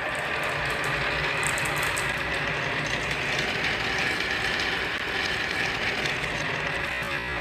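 Marbles rolling and clattering along a wooden marble-run track: a steady, dense rattle of many small clicks.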